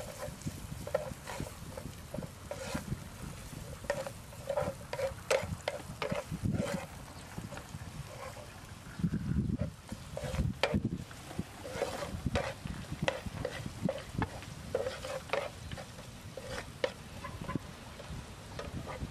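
Spatula scraping and tapping against a non-stick frying pan in irregular strokes while chopped garlic and chili are stir-fried in oil.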